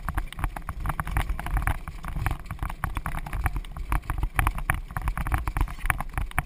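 A pony-drawn marathon carriage moving at speed over rough ground: a constant irregular clatter and rattle of the carriage and harness, over a low wind rumble on the microphone.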